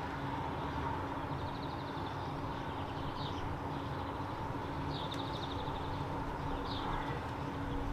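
Outdoor ambience: a steady low hum, with short bird chirps several times.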